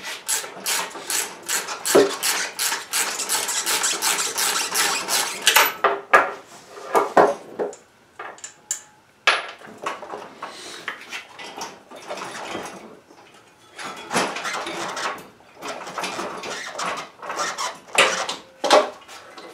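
Metal and plastic parts of a power wheelchair base being unbolted and handled: a fast, even run of clicks for about the first six seconds, then scattered clanks, knocks and rubbing as the front caster wheel and drive motor assembly are worked loose.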